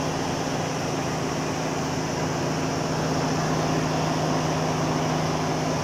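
Ford Expedition/F-150 engine idling, heard close at the front grille as a steady hum with an even rush of air.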